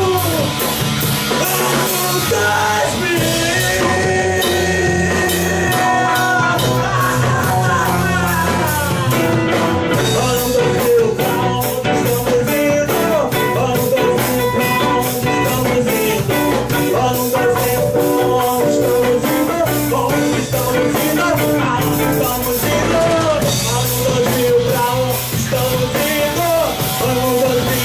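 Rock band playing an instrumental passage between sung verses. A drum kit keeps a steady beat under a melodic lead whose notes bend and slide in pitch.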